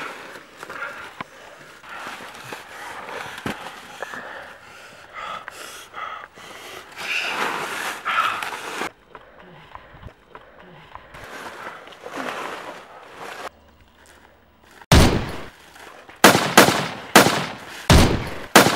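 Pistol gunfire: a rapid string of about seven shots beginning about fifteen seconds in. Before it, quieter scuffling and breathing.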